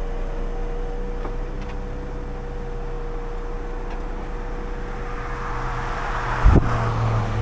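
Timber truck running with its loader crane's hydraulics engaged: a low engine hum under a steady whine. From about five seconds in a passing vehicle's noise swells and fades, with a single knock about six and a half seconds in, after which the low hum grows louder.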